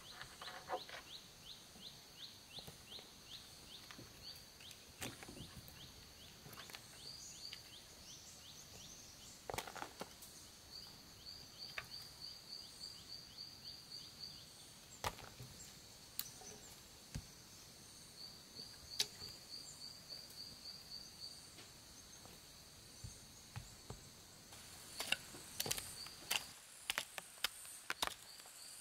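Forest ambience: a steady high insect drone with runs of fast repeated high chirps, over scattered sharp knocks and taps that crowd together near the end.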